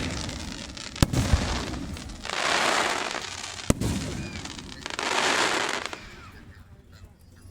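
Aerial fireworks bursting: a sharp bang about a second in and another a little past the middle, with two longer rushes of noise between and after them.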